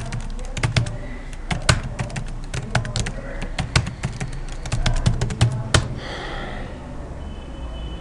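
Computer keyboard being typed on: a quick, irregular run of key clicks that ends with a harder keystroke just before six seconds in.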